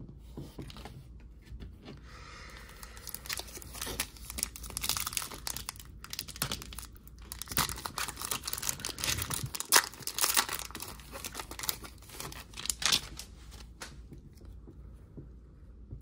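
Foil wrapper of a Panini Prizm basketball card pack being torn open and crinkled by hand: a dense, irregular crackle of tearing and crinkling that builds a couple of seconds in and dies away near the end.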